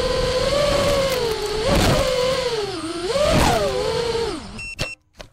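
Brushless motors and props of an FPV racing quadcopter (Emax RS2205 2300KV motors, Dalprop T5046 props) whining as heard from on board, the pitch swooping up and down twice with the throttle. Near the end the whine falls away as the motors wind down, followed by two sharp clicks before the sound cuts off.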